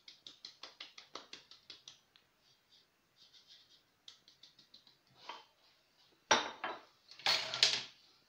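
Plastic flour sieve tapped by hand over a mixing bowl to shake flour through: a quick run of light taps, about six a second, then sparser taps, and two louder clatters of knocks near the end.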